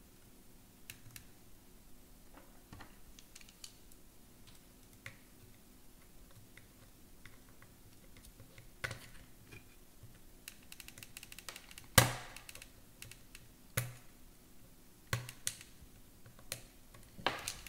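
Small plastic clicks and taps from a screwdriver and clips being worked onto the wheel axle of an iRobot Braava robot mop. One sharper, louder click comes about twelve seconds in, with a few more after it.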